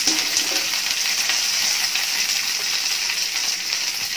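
Curry leaves frying in hot oil in a pan: a steady sizzle with small crackles, the tempering (tadka) stage of the curry.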